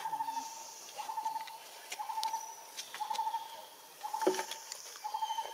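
An animal call in the background: one trilled, mid-pitched note repeated steadily about once a second. A few sharp clicks and a louder brief sound about four seconds in.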